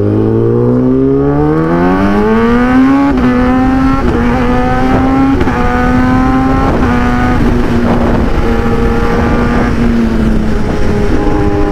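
Sport motorcycle engine revving up hard, its pitch rising for the first three seconds, then running at a steady high pitch at speed with small breaks in pitch every second or so.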